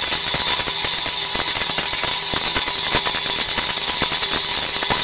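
DBL 3000 on-car brake disc lathe running, spinning the car's brake disc on its hub: a steady high hiss with a faint even whine and scattered light ticks.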